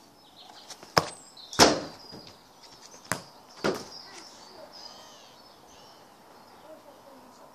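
Four thuds of a football being kicked and striking something, in two pairs a little over half a second apart, about a second in and about three seconds in; the second thud of the first pair is the loudest. Birds chirp faintly in the background.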